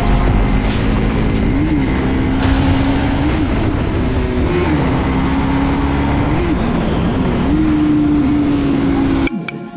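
Motorcycle engine running on the move, its note rising and falling with the throttle, under heavy wind rumble on the microphone. It cuts off suddenly near the end and music takes over.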